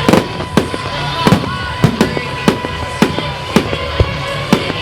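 Fireworks bursting in quick succession, a sharp bang about every half second, with music playing underneath.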